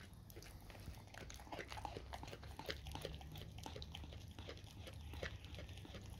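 A dog gnawing at a whole raw cow tongue: a run of irregular, wet smacks and clicks of its jaws and teeth on the meat.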